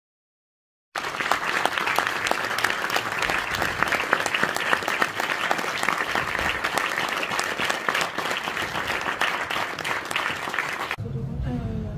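Cinema audience applauding, a dense, steady clatter of many hands clapping that starts about a second in and cuts off suddenly near the end.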